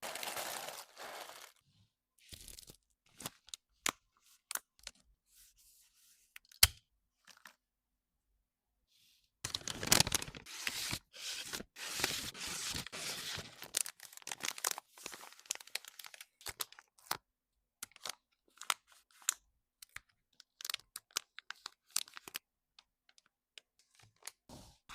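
Nail-art packaging being handled: tearing and crinkling of wrapping, with scattered clicks and taps. The longest stretch of rustling and tearing is in the middle, with a shorter burst at the start.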